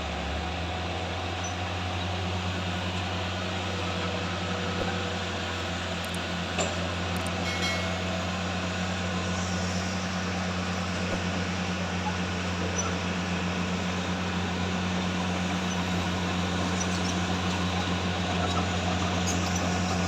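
Diesel engine of heavy earthmoving machinery running steadily with a low, even hum that grows slightly louder towards the end.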